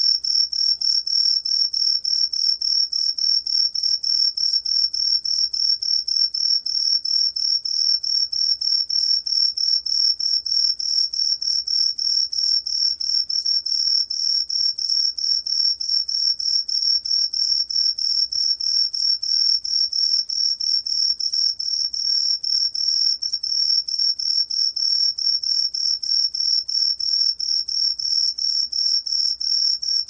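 Cheongsol cricket (Truljalia hibinonis) singing: a loud, high-pitched, continuous chirping of rapid, evenly repeated pulses, recorded at 18 °C.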